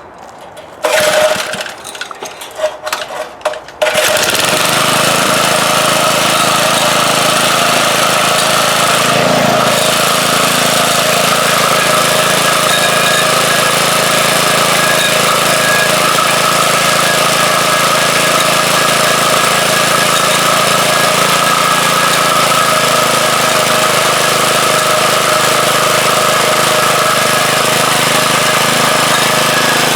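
A 4 hp Briggs & Stratton small engine being pull-started on a rototiller: a few short, uneven bursts, then it catches about four seconds in and runs steadily at an even speed.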